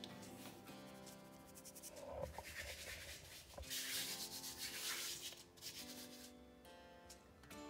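A hand rubbing and spreading flour over fresh rolled noodle dough on a silicone mat, a dry brushing sound that is loudest about four to five seconds in, over soft background music.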